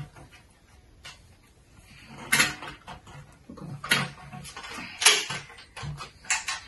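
Folding kick scooter being unfolded by hand: a handful of sharp clacks and clicks from the stem hinge and frame as the handlebar stem is swung upright, starting about two seconds in.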